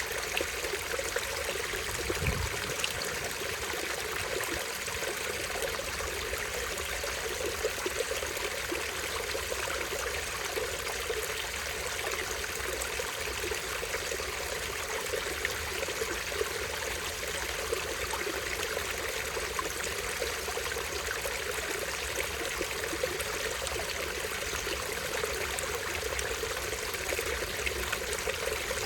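Small stream running steadily over a tiny waterfall, an even trickling and splashing of water. A brief low bump comes about two seconds in.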